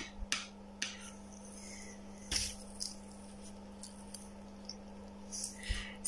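A steady low hum with a few faint clicks and rustles from gloved hands handling test probes; the loudest rustle comes a little over two seconds in.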